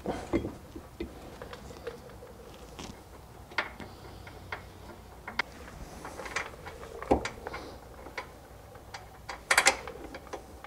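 Irregular metallic clicks and light knocks as a brake caliper and its pads are fitted back over the disc rotor by hand. There is a sharper knock about two-thirds of the way through and a louder cluster of clicks near the end.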